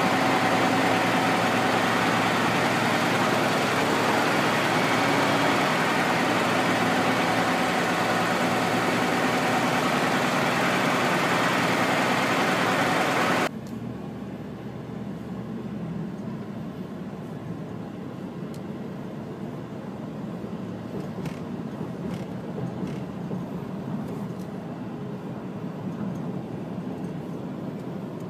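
Heavy semi-truck on the road, heard from a nearby vehicle: engine running with a steady hum over loud road noise, then, after a sudden cut about halfway through, quieter low road and tyre noise from highway driving behind a truck.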